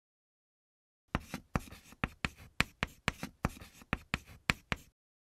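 Chalk-on-blackboard writing sound effect: a quick run of sharp taps and short scratches, about four a second, starting about a second in and stopping shortly before the end.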